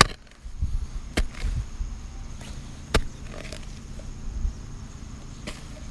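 Digging into dry ground for worms: four sharp knocks at uneven intervals, each a strike into the earth, with low rumbling between them.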